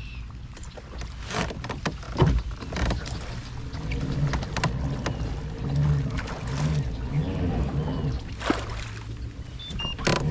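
Knocks and handling noise from gear on a kayak, with a low rhythmic whir that swells and fades about twice a second from about four seconds in.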